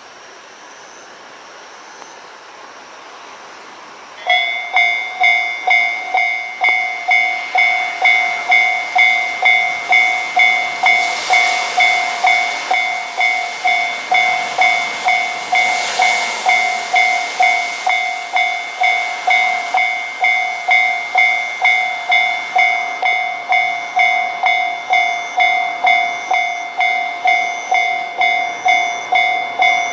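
Japanese railway level-crossing alarm bell, starting about four seconds in and striking about twice a second, each strike a ringing tone that fades. This crossing's alarm has an unusual-sounding start. A rushing noise swells underneath it through the middle.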